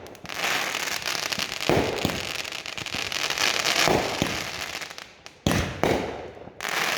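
Fireworks crackling densely for about five seconds, then several sharp bangs in quick succession near the end.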